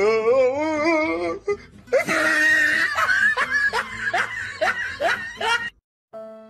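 A person laughing hard in a quick string of bursts, after a drawn-out, wavering vocal cry. Near the end it cuts off, and soft music with held notes begins.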